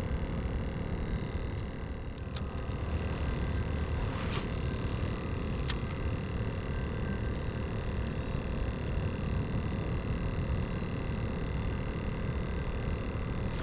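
Steady low rumble of open-air background noise, with a few light clicks and taps spread through it.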